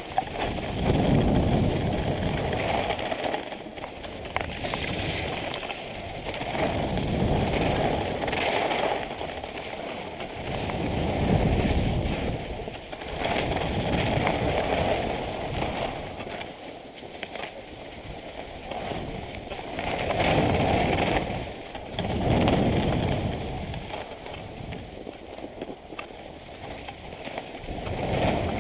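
Wind rushing over the microphone while skiing downhill, mixed with the hiss and scrape of skis on groomed snow. The noise swells and fades in irregular surges every few seconds as the skier turns.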